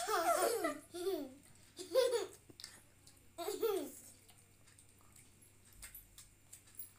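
Children laughing and giggling in three short outbursts in the first four seconds, then quieter, with faint wet mouth sounds as they bite and suck at mango slices.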